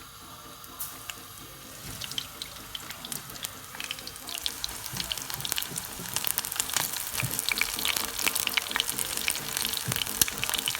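Cornflour-coated octopus pieces deep-frying in hot oil: a steady sizzle with crackling that starts about two seconds in and grows denser and louder as more pieces go in.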